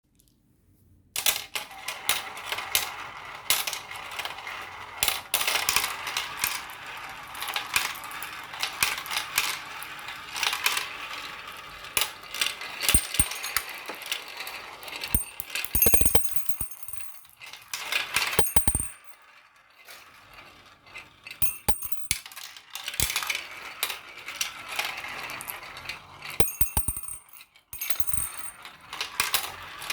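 Marbles rolling and clattering down a marble run track: a dense stream of small clicks and rattles, with short lulls about two-thirds of the way in and again near the end.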